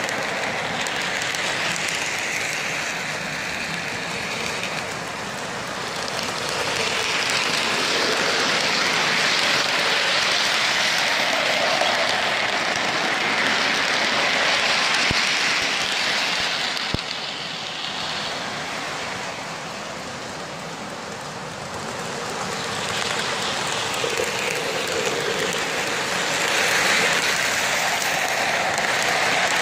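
Lionel O-gauge freight cars rolling on plastic FasTrack: a steady rattling clatter of small wheels on the rails. It grows louder as the cars pass close, falls off as the train moves away around the layout, and rises again near the end, with two sharp clicks about halfway through.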